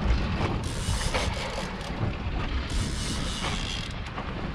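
Wind buffeting the microphone over a steady low rumble from the boat on open water, with two gusts of louder hiss about a second and three seconds in.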